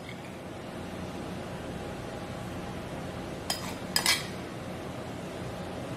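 A metal spoon clinking against dishes as grated cheese is spooned out of a ceramic bowl: a few short, light clinks about three and a half to four seconds in, over a faint steady hum.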